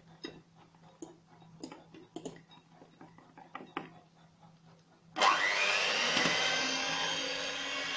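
A few faint taps, then about five seconds in an electric hand mixer switches on, its motor whining up in pitch as it gets to speed and then running steadily with its beaters in cake batter.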